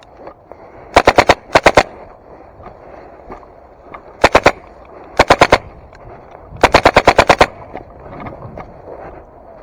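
Airsoft rifle firing close by in five short rapid bursts of three to four shots each, the last burst, about two-thirds of the way through, the longest at around eight shots.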